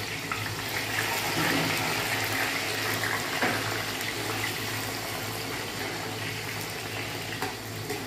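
Bitter gourd pieces deep-frying in hot oil in a steel kadhai: a steady sizzle as the oil bubbles around them, with a slotted spoon stirring through the pan.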